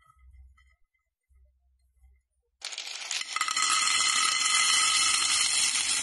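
Faint soft rustles at first. Then, about two and a half seconds in, a loud, dense rattle begins: dry elbow macaroni pouring off a wooden spoon, its hard pieces clattering down continuously.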